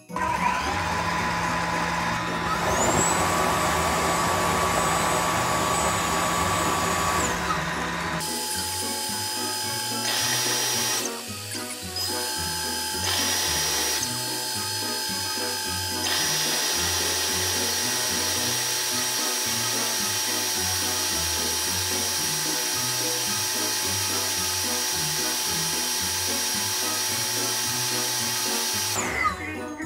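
Tineco Floor One S5 Combo wet-dry vacuum running its brush self-cleaning cycle: the motor and brush roller give a steady whirring whine that shifts in pitch several times. Background music plays underneath.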